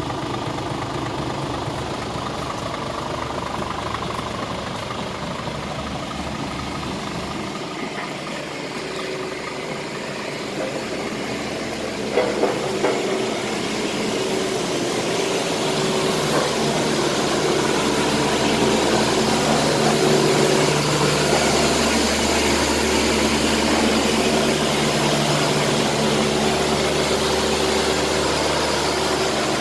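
Scania R500 tractor unit's diesel engine idling steadily, with a faint hiss that grows a little louder partway through. A couple of sharp knocks come about twelve seconds in.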